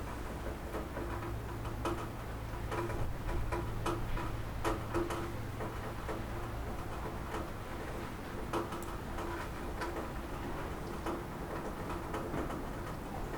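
Rain falling on a roof: an irregular patter of sharp ticks as drops strike it, over a soft steady hiss, with a low hum underneath for the first half.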